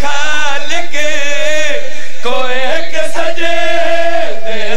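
A man's voice chanting a line of a devotional qasida in long, drawn-out notes that bend up and down, with a short break about two seconds in and a falling note near the end.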